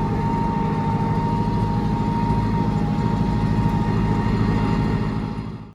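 Four-wheel-drive tractor engine running steadily under load while plowing snow, with a thin steady whine above the engine drone; it fades out near the end.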